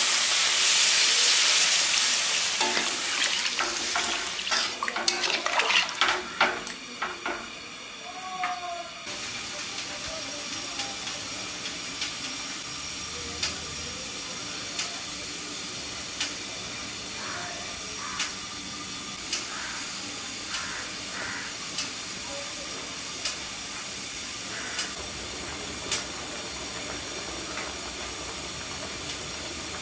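Water poured into a hot pan of fried potatoes and spice paste sizzles loudly for the first few seconds. A spatula then clinks and scrapes against the pan as the curry is stirred, and after that the watery curry simmers with a steady low hiss and a faint tick every second or two.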